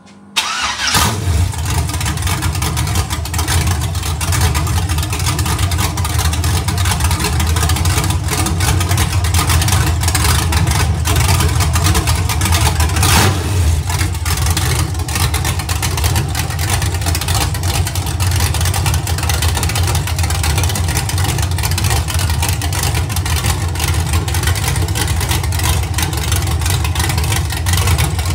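An iron-block 5.3 L LM7 V8 on a run stand with open headers starts within the first second, then runs loud and steady. Its camshaft is believed to be a mild BTR Stage 2 truck cam (212/218) with little valve overlap.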